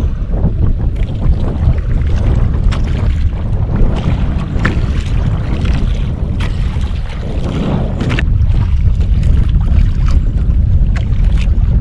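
Wind rumbling on the microphone, with waves slapping against the hull of a small outrigger fishing boat and scattered small knocks and splashes.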